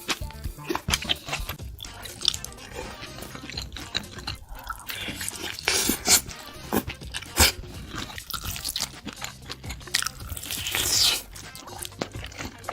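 Close-miked crunchy biting and chewing of food, with irregular sharp crunches, over background music.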